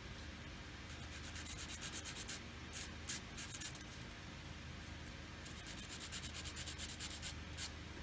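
Quick, scratchy rubbing strokes in two short runs, one from about a second in and one from about five and a half seconds in: a small sanding stick or file rubbed against a tiny photo-etched metal seatbelt part held in tweezers, cleaning it up after it was cut from the fret.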